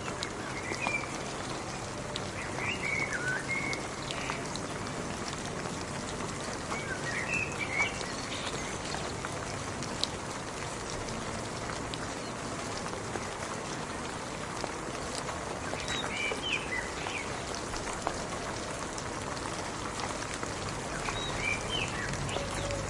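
Steady rain falling, an even hiss with the tick of individual drops. A bird chirps in short bursts now and then, about five times.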